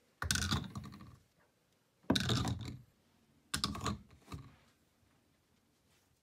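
Chrome Rocket espresso portafilter being handled in a black wall-mounted portafilter holder, metal knocking on the holder: three sharp clacks a second or two apart, each with a short rattle, then a lighter knock.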